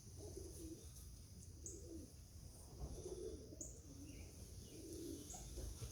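Racing pigeons cooing: faint, low coos repeating about once a second.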